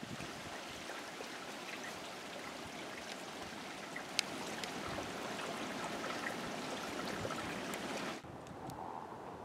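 Shallow creek trickling over rocks, a steady watery hiss that cuts off suddenly about eight seconds in.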